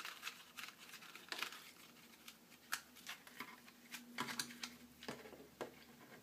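Scattered small clicks and scrapes of a plastic remote-control transmitter case being handled while a locking nut is threaded by hand onto a pushbutton fitted through the case.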